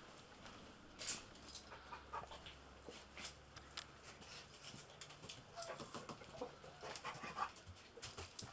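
A bomb-detection dog panting and sniffing in short, quick, irregular bursts as it searches.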